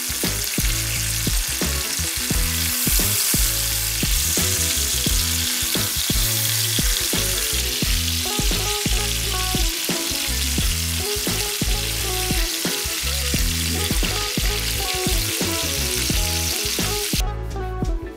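Chicken thighs sizzling as they fry in oil and butter in a frying pan, a dense steady hiss that cuts off abruptly about a second before the end. Background music plays underneath.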